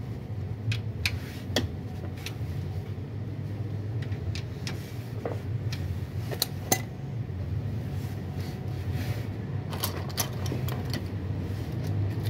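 Metal hand tools and parts clinking now and then during engine repair work, a dozen or so light clinks with the sharpest about two-thirds through, over a steady low hum.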